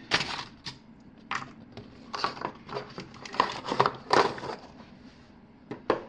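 Cardboard board-game box, lid and folding game board being handled and cleared away: a string of short scrapes, rustles and knocks of cardboard against a wooden tabletop.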